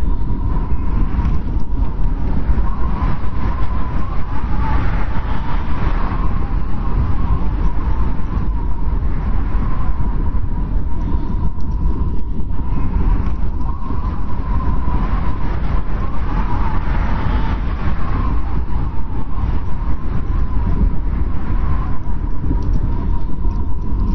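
Strong wind blowing steadily in a snowstorm: a deep, constant rumble with a thin whistle that swells and fades every few seconds.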